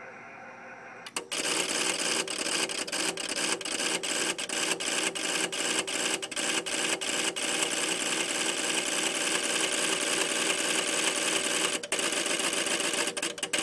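LDG AT-1000Pro automatic antenna tuner's relays chattering rapidly through a tune cycle as it searches for a low-SWR match. The clatter starts about a second in, with many sharp clicks, and carries on to the end.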